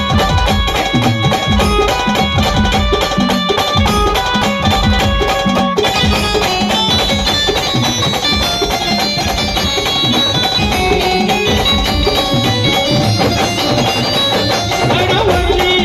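A band playing loud traditional folk music: held melody notes over steady, heavy drumming.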